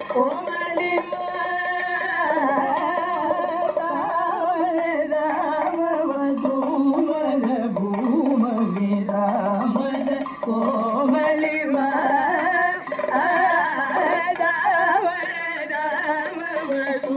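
Kathakali padam singing in Carnatic-style melody: a voice holds and slides through notes with constant wavering ornaments.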